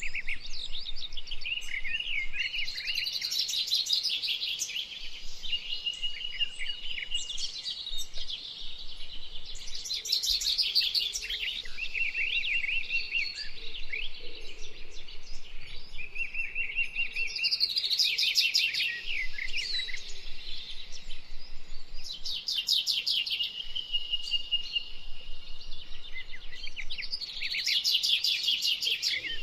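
A songbird singing continuously in varied phrases: short held whistles and quick chirps, broken every few seconds by a very fast, high trill.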